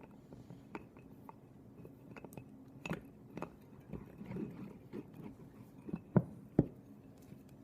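Small clicks and taps of a marble cheese board's slicer parts, its handle and wire rod, being worked into place by hand, with two sharper knocks about six seconds in.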